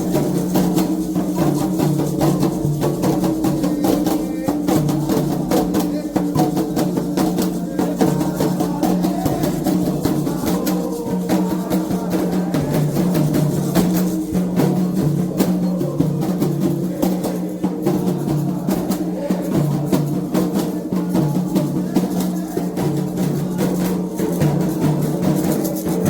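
Candomblé ritual drumming on atabaque hand drums, played continuously with dense strokes.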